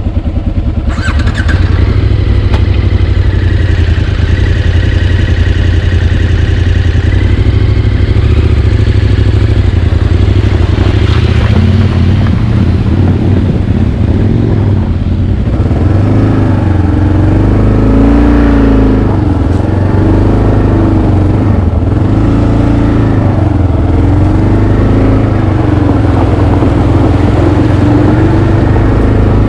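Adventure motorcycle engine running under way. In the second half its pitch rises and falls over and over as the throttle is opened and closed.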